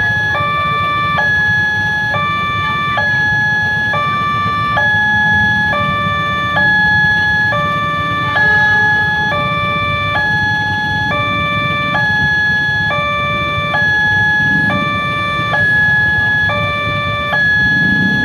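Railway level-crossing warning alarm sounding an electronic two-tone, high-low alternation that repeats evenly, about one cycle every second and a half, over a steady low rumble.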